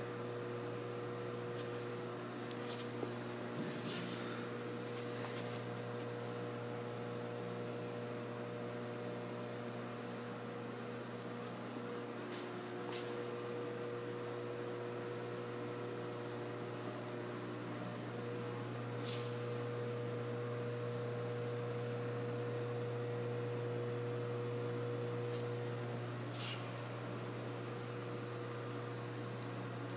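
Steady electrical mains hum with a few faint higher tones above it, from electrical equipment around the panelboards. A handful of faint clicks come through over the top.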